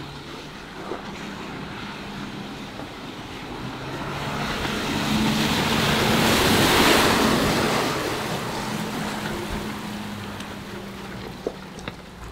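Land Rover Defender driving slowly off-road: a steady low engine note under a broad rush of wind and tyre noise that swells to its loudest about seven seconds in, then fades.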